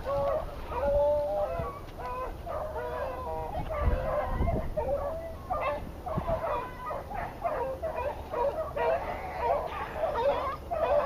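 A pack of rabbit-hunting dogs baying together, several voices overlapping in steady, drawn-out calls: the hounds are on a rabbit's scent.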